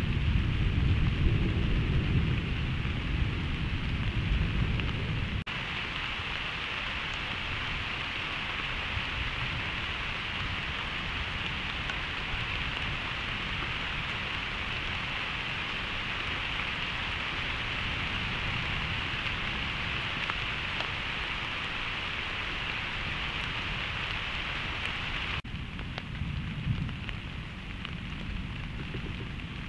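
Rain falling steadily with an even hiss during a thunderstorm, with a low rumble of thunder fading out over the first few seconds. Near the end the rain hiss drops to a quieter level with a little low rumble underneath.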